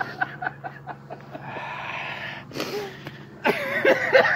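A man laughing hard and breathlessly: quick chuckles fade into a long wheezing breath and a short sharp gasp, then loud laughter starts up again about three and a half seconds in.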